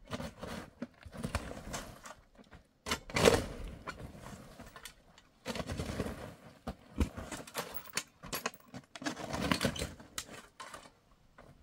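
Hand tools knocking and scraping in irregular strokes, one every second or two, with a few sharp knocks between them.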